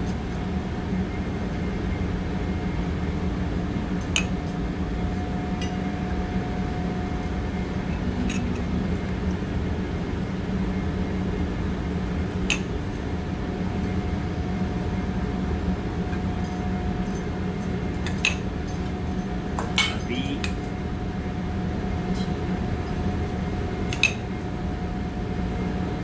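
Occasional light clinks and taps of utensils and crackers against a ceramic plate and a steel bowl during plating, about six in all, over a steady mechanical hum of kitchen machinery.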